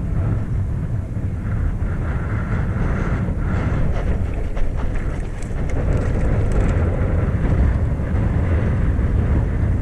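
Wind buffeting the microphone outdoors: a loud, unsteady low rumble with a rushing hiss.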